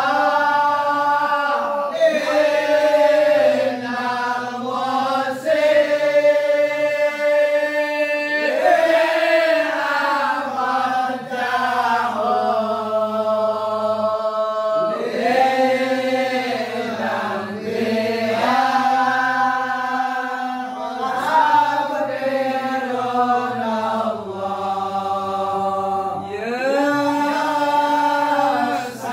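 A congregation chanting sholawat, Arabic devotional praise of the Prophet, together in one voice, with long held notes that slide up and down and no drums.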